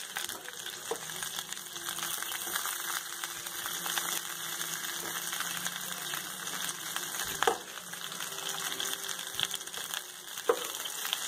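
Stuffed green bell peppers sizzling in a little mustard oil in a kadhai. A slotted metal spoon turning them gives a few clicks and scrapes against the pan, the loudest about seven and a half and ten and a half seconds in.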